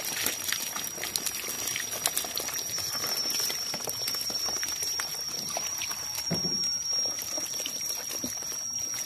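Water bubbling and trickling in plastic basins of aerated water, with scattered light taps and splashes, over a steady high whine.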